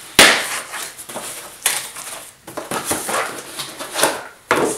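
Cardboard shipping box being torn open by hand: a sharp rip just after the start, then further tearing and rustling of cardboard in short bursts, with the box rustling and scraping as it is tipped up near the end.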